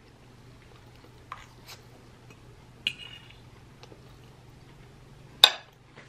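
Metal fork clinking and scraping against a ceramic plate a few times, with one ringing clink about three seconds in and the loudest clink near the end as the fork is set down on the plate. A faint steady low hum runs underneath.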